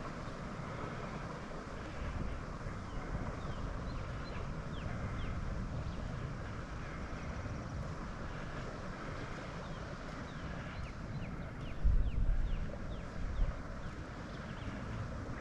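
Wind buffeting the microphone outdoors on open water: a steady low rumble with a hiss over it. Two stronger gusts hit about twelve and thirteen and a half seconds in.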